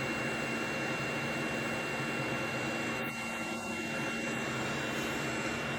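Hot air rework station blowing a steady stream of hot air onto a laptop GPU chip to reflow its cracked BGA solder joints: an even rush of air with a thin constant high whine.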